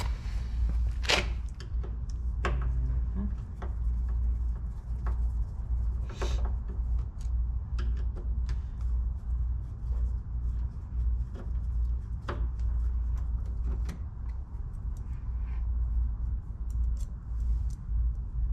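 Scattered clicks, knocks and rubbing of car interior trim being worked loose by hand, over a steady low hum.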